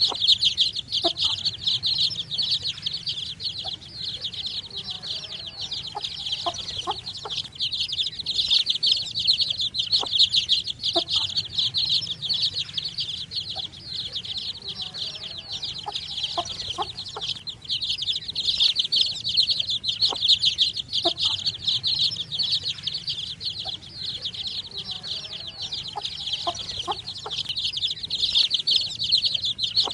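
A brood of baby chicks peeping constantly, many high, shrill peeps overlapping into a dense chorus, with a few short lower calls mixed in.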